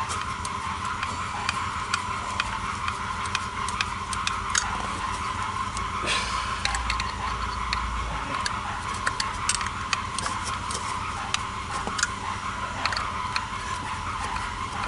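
Irregular light clicks and ticks of hand tools and small parts being handled while a distributor pickup is screwed in, over a steady background hum.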